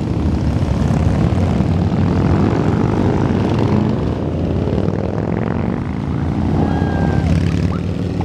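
Many cruiser motorcycles riding past in a procession: a steady mass of engine drone, with single bikes' engine pitch sliding as they go by.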